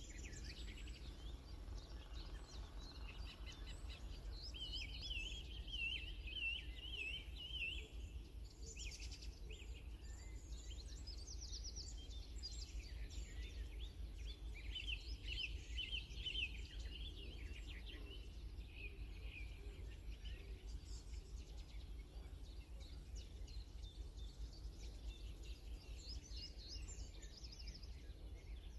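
Small birds chirping and twittering, with longer warbling phrases about four to eight seconds in and again from about twelve to seventeen seconds, over a steady low rumble.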